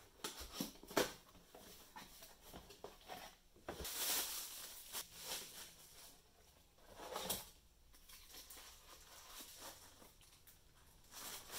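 Plastic bags and cardboard packaging crinkling and rustling as a camera body and lens are unpacked, with scattered light clicks and a few louder crinkles around a third of the way in and past halfway.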